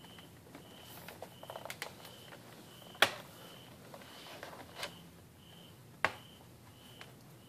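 Plastic clicks and snaps as a Sony laptop's bottom cover is pressed back onto the chassis, with small rattles early on and two sharp loud snaps about three seconds apart as the cover clips into place. A faint high beep repeats about every 0.7 seconds behind it.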